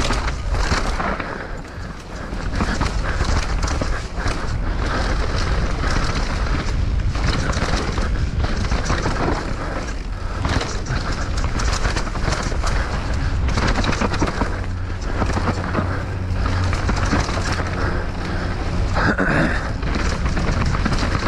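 Downhill mountain bike being ridden fast: a steady rush of wind and tyre noise with frequent knocks and rattles from the bike over rough ground.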